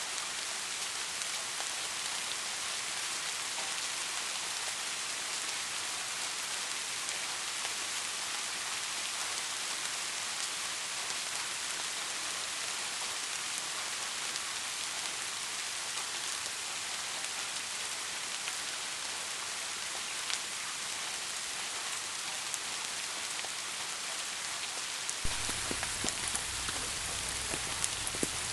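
Steady rain falling, an even hiss with scattered sharper drop ticks. A low rumble joins in about 25 seconds in.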